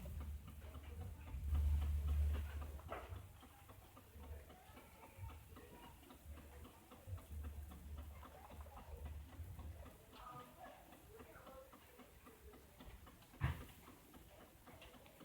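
Steady fast ticking of the 1999 Volvo S40's engine idling with its idle misfire, with low rumbles now and then and one sharp click about 13 seconds in.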